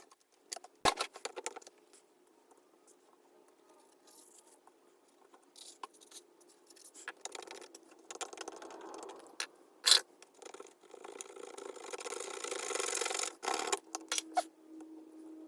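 A tool scraping and rubbing leftover battery adhesive off the inside of a MacBook Pro's case, with a few sharp clicks and taps. The scraping becomes more continuous in the second half.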